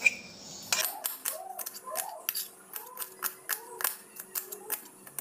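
Small kitchen knife slicing a red onion directly on a stone kitchen slab, the blade tapping the stone in a quick, irregular run of sharp clicks, about five a second.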